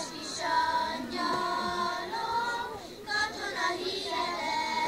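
A group of young girls singing a Hungarian folk song together.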